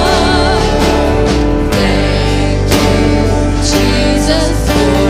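Live church worship band playing a slow gospel worship song, with guitars and a woman singing long held notes over it.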